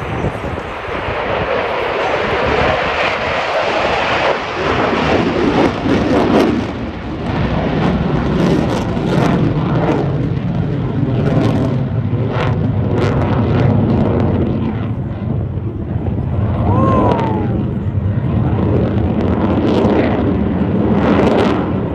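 Fighter jet flying overhead: loud, continuous jet engine noise.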